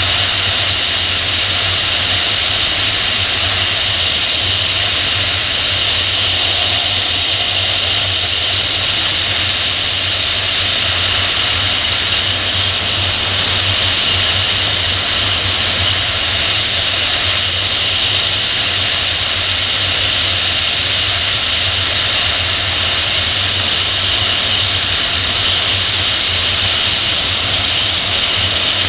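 Steady rush of airflow past a PIK-20 sailplane in gliding flight, heard as wind on a camera mounted on the tail. It is a constant loud hiss, brightest in a high band, over a steady low rumble.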